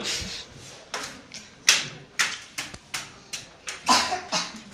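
Wooden abacus beads being flicked, a quick irregular run of sharp clicks and clacks, the sound of pupils working sums on their abacuses.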